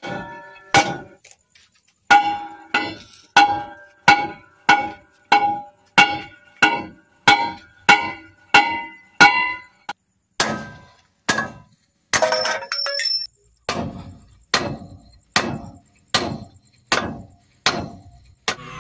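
A steel bar repeatedly striking the wheel hub of a Howo dump truck, metal on metal with a ringing clang, about three blows every two seconds with a couple of brief pauses. The blows knock out broken wheel stud bolts.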